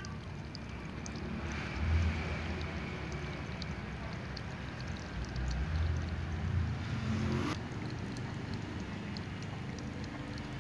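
A cat lapping water with its tongue, a run of small soft clicks, over a steady low rumble.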